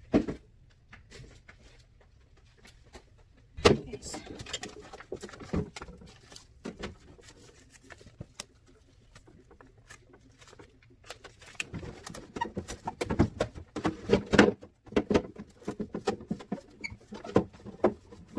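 Intermittent knocks, clicks and rattles of objects being handled, with a sharp knock a few seconds in and busier clatter in the last several seconds.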